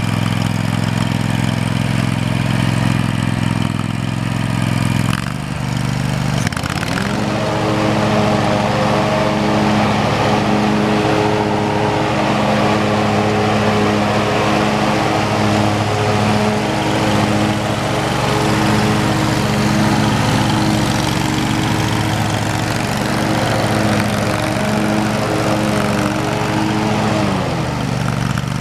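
Simplicity zero-turn mower's engine idling, then throttled up about six seconds in to a steady high-speed run, and throttled back down near the end.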